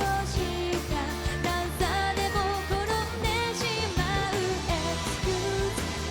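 Live Japanese pop-rock band performance with a singer's voice over a steady beat.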